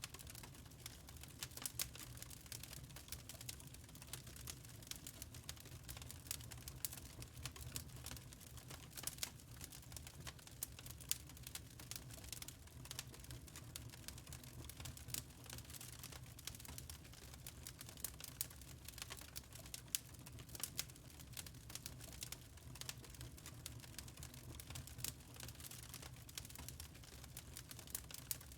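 Wood fire crackling in a fireplace: a soft low rumble of flames with many small, irregular pops and snaps of burning logs.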